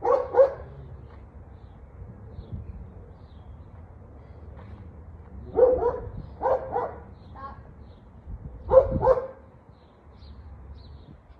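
Dog barking in short bursts: a couple of barks at the start, a run of several barks about halfway in, and a loud bark near the end.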